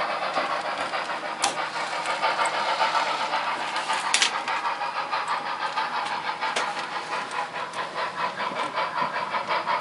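Sound-equipped model steam locomotive chuffing steadily as it moves at slow switching speed, with a couple of sharp clicks.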